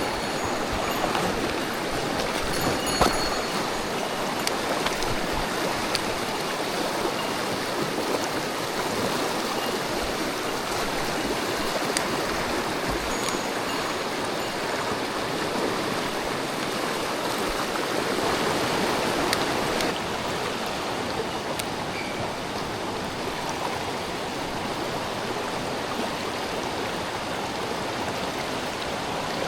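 Mountain stream water rushing over rocks in a steady, even wash, with a few faint clicks.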